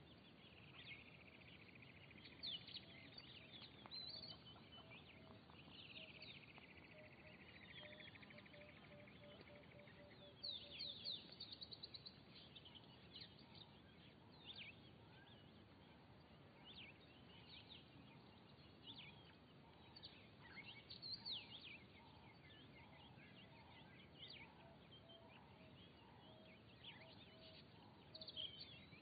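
Faint chorus of wild birds over a soft background hiss: many short high chirps, two long descending buzzy trills in the first several seconds, and a steady run of low repeated notes.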